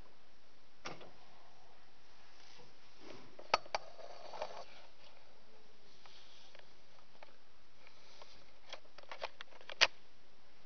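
Steady low hiss broken by a handful of sharp clicks and knocks: two close together about three and a half seconds in, and a quick cluster near the end, the last one the loudest.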